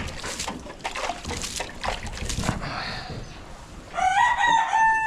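A rooster crowing: one long call that starts about four seconds in, rises, holds level and then falls away. Before it come soft scattered knocks and rustles.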